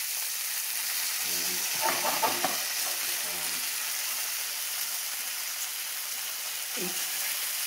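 Steak, mushrooms and onions sizzling in butter in a frying pan, a steady hiss. About two seconds in, a quick run of clicks and scrapes of a fork against the pan as the food is moved.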